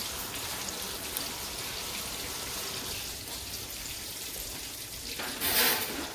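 Steady sizzling of catfish frying in hot oil, with a louder hiss for about a second near the end.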